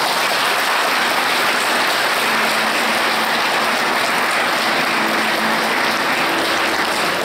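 Audience applauding: dense, steady clapping that starts abruptly and lasts about seven seconds.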